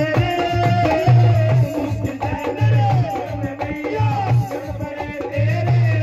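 Live Hindu devotional bhajan music through a PA: a male singer's melody over a repeating deep drum beat and a shaker-like rattle.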